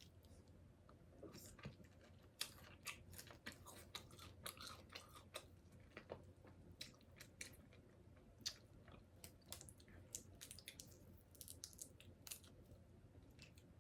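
Close-miked chewing of shrimp: many small, irregular wet clicks and smacks of the mouth, fairly faint.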